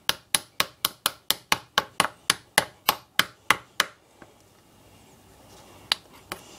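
A hard tool tapping rapidly and steadily at the plaster block of a toy dinosaur dig kit, about four strikes a second, chipping it away. The tapping stops about four seconds in, with two single taps near the end.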